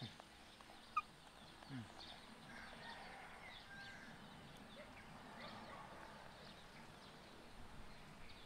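Faint outdoor ambience of small birds chirping, with one sharp chirp about a second in and a single short low call that drops in pitch just after.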